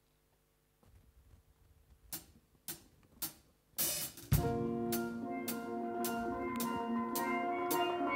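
Steel pan band with drum kit starting a piece: three sharp clicks on a steady beat, then about four seconds in the pans and drums come in together. The pans ring sustained chords over a regular beat of drum strikes about two a second.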